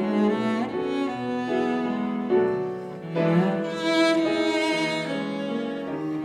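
A cello bowing a slow, sustained melody with piano accompaniment.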